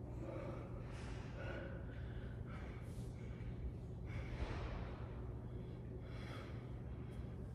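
A woman's heavy breathing during a dumbbell workout: a series of hard, breathy exhales and gasps about a second apart, over a steady low hum.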